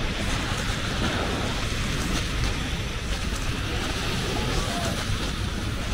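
Sea surf washing on a beach, a steady rush, with wind buffeting the microphone as a low rumble.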